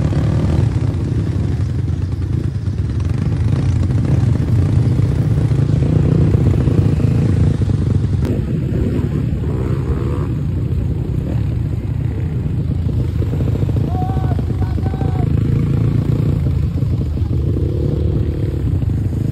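Dirt bike engine running steadily at road speed, with wind rushing over the microphone.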